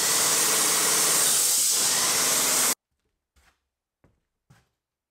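Airless paint sprayer spraying a wall: a loud, steady hiss of paint leaving the spray tip under high pressure, with a faint pump hum beneath. It cuts off suddenly about two and a half seconds in, followed by near silence with a few faint taps.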